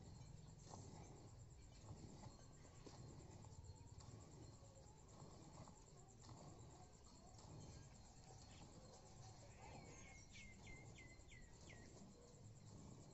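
Near silence with a faint, steady high insect trill throughout. About ten seconds in, a bird gives a quick run of five short falling chirps.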